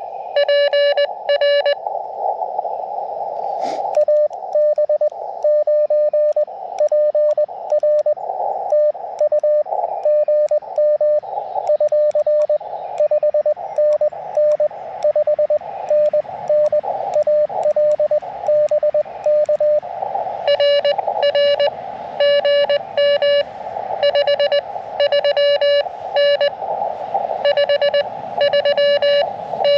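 Morse code (CW) from an Elecraft KX2 transceiver: a steady tone keyed on and off in dots and dashes over hiss from the receiver's narrow CW filter, with a click a little under four seconds in. About two-thirds of the way through, a louder, buzzier keyed tone takes over.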